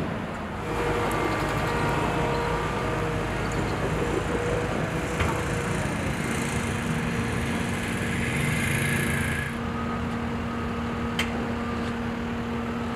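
Steady outdoor mechanical noise of engines running, with a held hum and a hiss that swells partway through and then stops. Two light clicks come about five and eleven seconds in.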